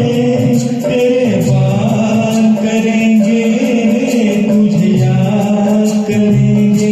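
Karaoke backing track of a Hindi film song playing an instrumental passage between sung lines: long held melody notes over a steady beat.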